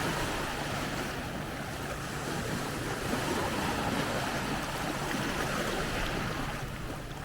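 Small waves lapping and washing onto a sandy beach, a steady wash of surf noise, with some wind.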